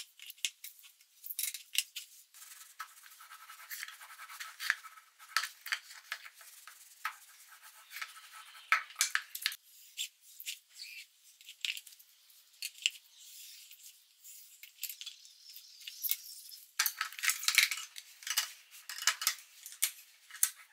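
Hand work at a bench: a snap-off utility knife scoring and scraping along tape-lined plastic strips on a cutting mat, with many small clicks, taps and rustles as the strips and tape are handled. A denser scratchy spell comes near the end.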